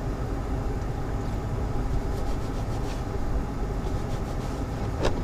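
A steady low rumble, with the faint rubbing of a paper shop towel wiping the plastic sensor base clean with alcohol and a short sharper scrape near the end.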